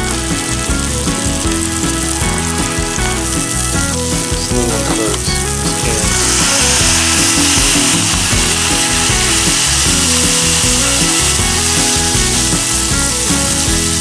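Ground beef sizzling in melted butter on a hot Blackstone flat-top griddle. The sizzle grows louder about six seconds in, as the burger balls are smashed flat. Background music plays along.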